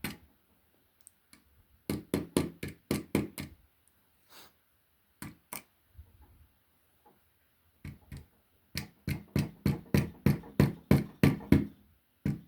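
Short, sharp taps in scattered clusters, then a steady run of about three taps a second from about nine seconds in, as a small metal axle pin is worked into the end of a diecast model truck's axle.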